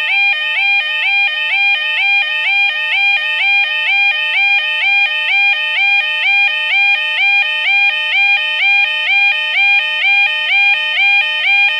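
UK level crossing yodel alarm sounding: a warble of two stepped tones, low then high, repeating about twice a second without a break. It warns road users that a train is approaching and the barriers are down.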